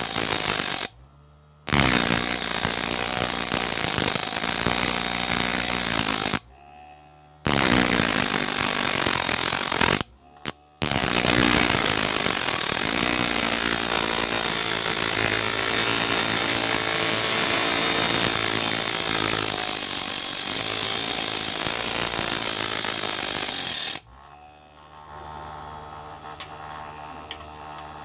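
Small hand-held rotary tool (mini drill) with a thin cutting disc running at high speed, a loud motor whine whose pitch shifts slightly. It stops abruptly three times in the first ten seconds and runs on more quietly for the last few seconds.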